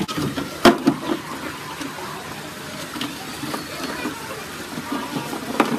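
Hollow plastic jerry-can feeder knocking against the ground as it is lowered on a line. There is a sharp knock about a second in and another near the end, over steady background noise.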